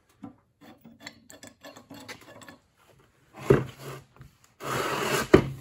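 Pipe wrench being fitted and seated on a steel pipe fitting held in a bench vise: light metal clicks and taps, then two louder rasping scrapes, the second ending in a sharp metal clank.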